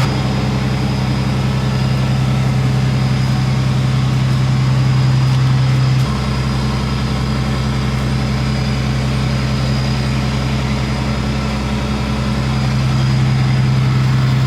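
A vehicle engine idling steadily, a low even hum, with a slight change in its tone about six seconds in.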